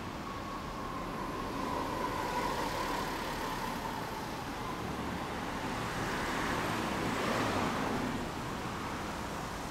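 Road traffic: a vehicle passing, its sound swelling and fading away about six to eight seconds in, over a steady background rumble.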